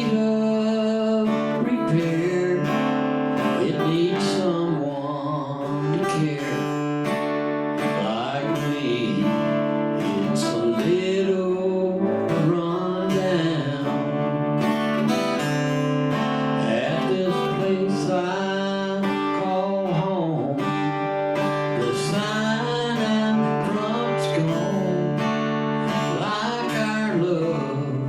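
Live acoustic guitar strummed steadily under a singing voice carrying a melody line: a country-style song performed solo.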